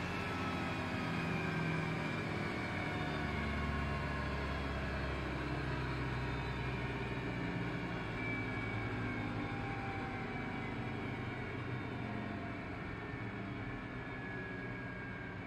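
Business jet's turbofan engine winding down, its whine made of several tones sliding slowly downward in pitch over a low rumble as the sound gradually fades.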